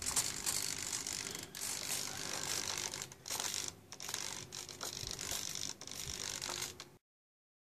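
Small servos in an FMS A-1 Skyraider foam RC plane whirring in short, stuttering runs. The 3-axis gyro stabilizer is driving the ailerons, elevator and rudder to counter the plane being tilted by hand. The sound cuts off abruptly near the end.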